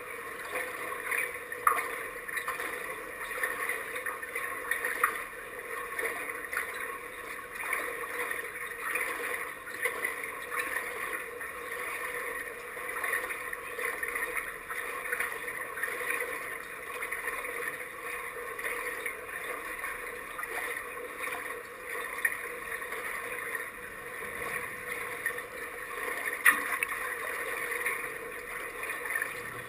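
Pool water lapping and sloshing at the surface around a half-submerged camera as kayaks rock on it, a steady wash broken by a few sharp splashes, the loudest near the end.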